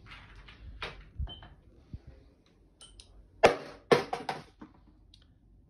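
A steel ball dropped from a free-fall release lands with one sharp knock about halfway in, then bounces in a few lighter knocks coming quicker and quicker.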